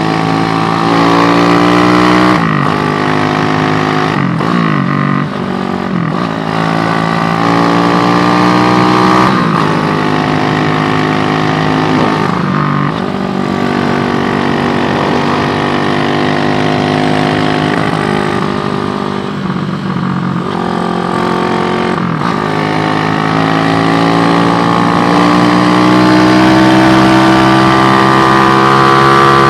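Motorcycle fitted with an SND ZS 190 single-cylinder four-stroke engine, running under way. The revs dip briefly several times and then climb steadily near the end.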